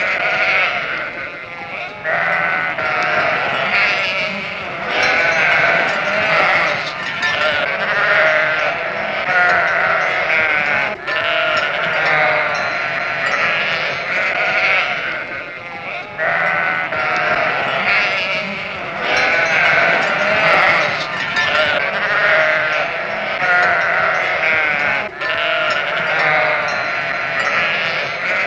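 A flock of sheep bleating continuously, many overlapping calls with no break.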